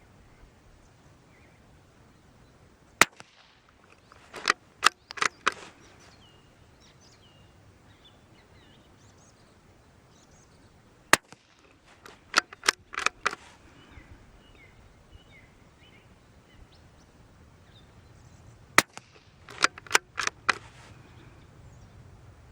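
Three .22 LR shots from a Brno (CZ) bolt-action rifle, about eight seconds apart. Each shot is followed about a second later by a quick run of four or five metallic clicks as the bolt is worked to reload. Faint bird chirps sound between the shots.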